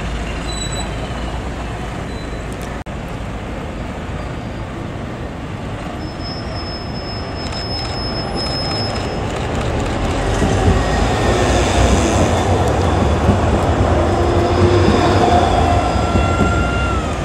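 A PESA Swing low-floor tram approaching and passing close by on grass-covered track, its running noise growing steadily louder from about halfway and peaking as it goes past, with a few steady whining tones near the end.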